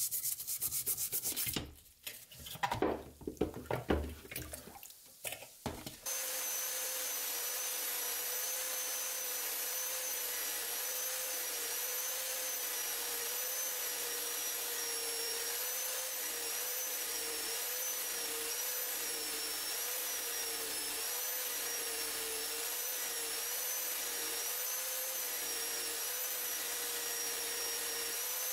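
A brush scrubbing a wet steel knife blade, then a few seconds of knocks and handling. From about six seconds in, a motor-driven wire brush wheel runs steadily against the steel blade: a steady whine whose pitch wavers slightly, over the hiss of the wires scraping off rust.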